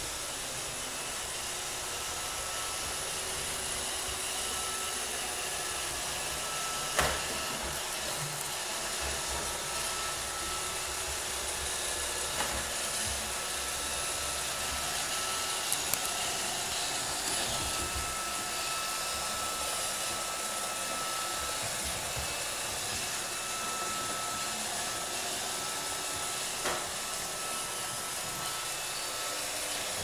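Roomba robot vacuum running on a hardwood floor: a steady whirring hiss with a thin high whine, broken by a few sharp knocks, the loudest about seven seconds in.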